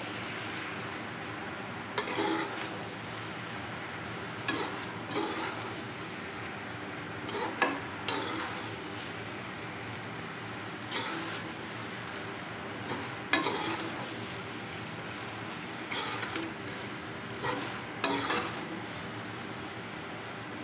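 Shell macaroni and vegetables sizzling in oil in an aluminium pot, with a metal spoon scraping against the pot as it is stirred every second or two.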